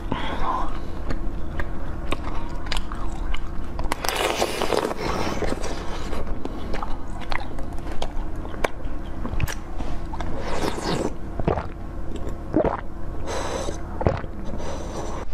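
Close-miked eating sounds: biting and chewing a pale, translucent Pikachu-shaped jelly sweet. There are many small wet clicks, and louder crunchy bites about four seconds in, at around ten and a half seconds, and near the end.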